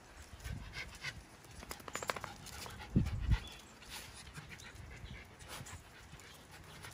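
Miniature Schnauzer puppies sniffing and breathing quickly close to the microphone, with small scattered clicks, a brief pitched whine about two seconds in, and a low thump about a second later, the loudest sound.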